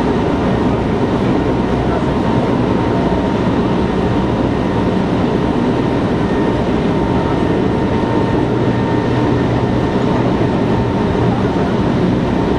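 Cabin noise of an Osaka Municipal Subway 66 series electric train running at speed: a steady rumble of wheels and running gear with a faint steady high tone.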